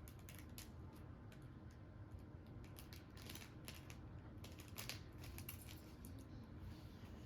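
Faint, scattered light clicks and taps from small objects being handled at a table, with a low room hum underneath.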